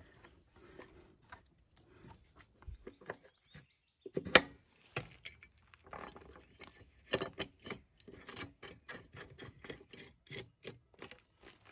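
Irregular metal clinks, knocks and scraping as a steel rotary mower blade is handled and set onto the blade adapter under a Toro Recycler mower deck, with one louder knock about four seconds in.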